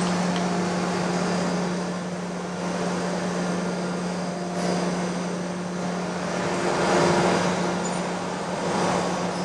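Surface grinder running with a steady hum while its dished 60-grit wheel grinds the end of a shaft held in an indexing fixture. The grinding hiss swells and fades every two seconds or so.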